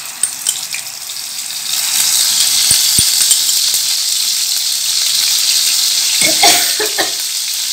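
Ginger-garlic paste sizzling in hot oil in a frying pan. The hiss swells about two seconds in and then holds steady.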